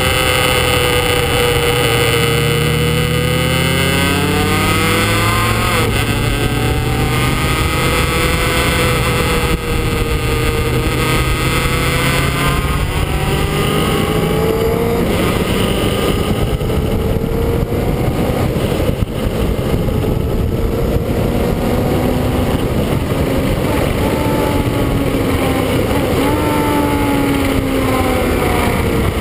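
2003 Kawasaki ZX-9R's inline-four engine running hard on a race track, its note sliding down and rising again as the throttle is rolled off and opened through the corners, over steady wind noise on the onboard microphone.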